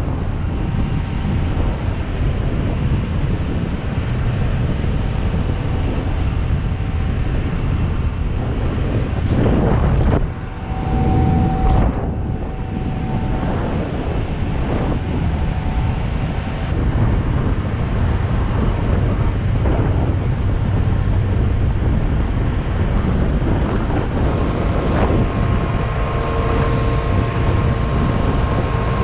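Boat underway at planing speed: wind rushing over the microphone over the steady drone of a carburetted 1989 350 MerCruiser V8 and the hull running on the water. The noise drops briefly about ten seconds in.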